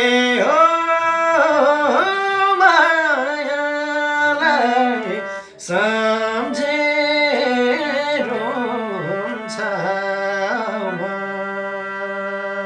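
Nepali folk song performed live: a wordless, heavily ornamented melody with many pitch slides over a steady held drone note, with a short break about halfway through.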